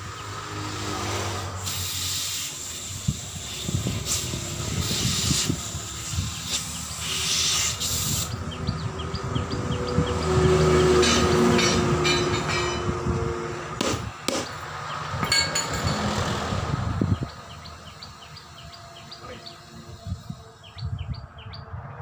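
Compressed air hissing from an air-line chuck as a truck tyre on a steel rim is inflated. The hiss stops abruptly about seventeen seconds in, with a couple of sharp metallic knocks shortly before.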